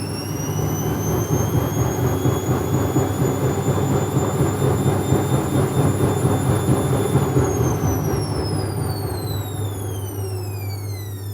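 Techwood WB 91042I washing machine drum spinning: a high motor whine held at a steady pitch over a low rumble, then falling steadily in pitch from about two-thirds of the way in as the drum slows down at the end of a spin.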